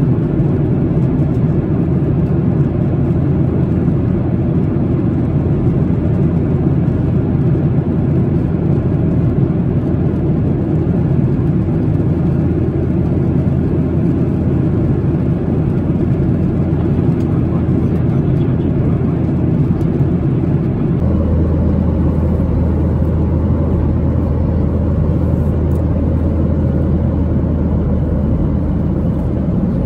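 Boeing 737-800 cabin noise in cruise: the steady drone of its CFM56 turbofans and the airflow past the fuselage, heard inside the cabin. About 21 seconds in, the low hum shifts to a steadier, slightly higher drone.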